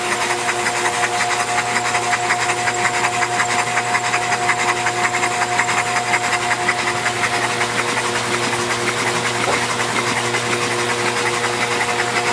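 Audi V6 engine, bored and stroked to nearly 3 litres, being run in on an engine Simtester: a steady mechanical running sound with a fast, even ticking from the valvetrain and a steady whine.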